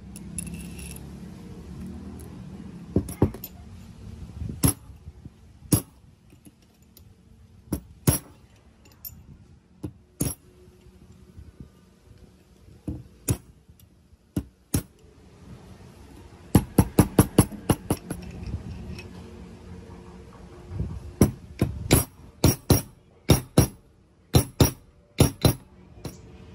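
Sharp metal-on-metal taps as a ball bearing is driven onto a steel spindle shaft, at first single and spaced, then in quick runs of several strikes a second.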